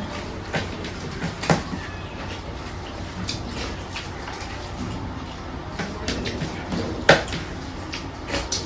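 Eating sounds at a meal plate: scattered small clicks and knocks of dishes handled, with two sharper knocks about a second and a half in and about seven seconds in.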